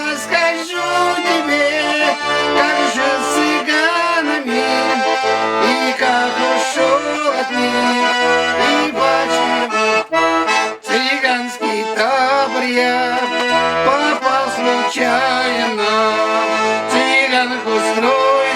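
Russian garmon (button accordion) playing an instrumental passage of a folk song: a melody over a steady rhythm of bass chords.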